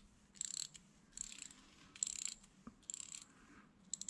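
Freshly rebuilt, lightly greased 7-speed bicycle freewheel turned by hand in short strokes, its pawls ratcheting in five quick bursts of rapid clicks about a second apart. Really not loud.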